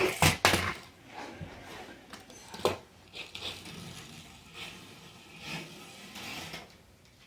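Small electric remote-control buggy driven in short bursts of throttle, with a cluster of sharp knocks about a second in and a single knock near three seconds in.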